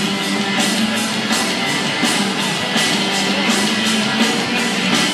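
Loud rock music with guitar and a fast, steady drum beat, played over a ballpark's public-address system as a pitcher's entrance music.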